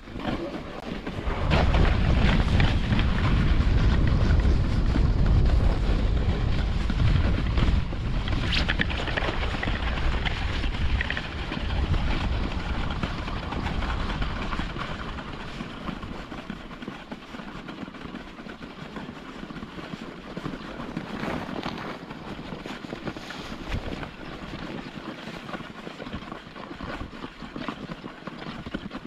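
German Luge 115 sled's runners rumbling and scraping over the packed snow of a toboggan run as it picks up speed, with wind on the microphone. The rumble sets in about a second and a half in, is loudest for the next dozen seconds, then eases to a lighter hiss.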